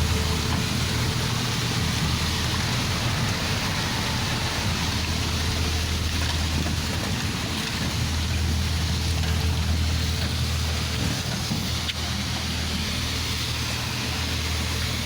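Waterfall pouring steadily: a dense, unbroken rush of falling water with a strong low rumble underneath.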